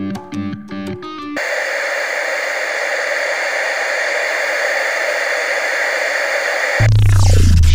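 Background guitar music cuts off about a second and a half in and gives way to a steady hiss of TV-style static, the sound of a lost analog video feed. Near the end a falling sweep and a deep hum start.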